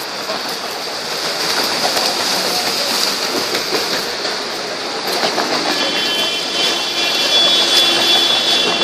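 City street traffic noise, then about five seconds in an approaching low-floor electric tram adds a high, steady whine that grows louder as it nears the stop.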